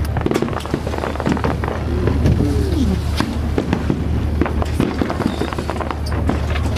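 Fireworks display: a dense, irregular crackle of many small bursts and bangs over a steady low hum.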